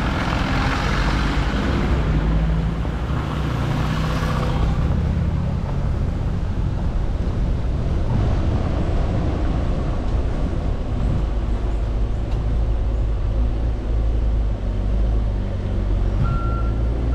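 Motor vehicle engine rumble and tyre and road noise, with a louder rushing swell for the first few seconds as if traffic passes close by. Near the end an electronic beeper starts sounding in short repeated beeps.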